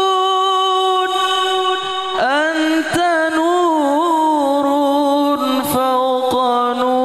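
A man singing a sholawat (Islamic devotional praise song) in long, drawn-out ornamented notes with a wavering vibrato, the melody sliding between pitches.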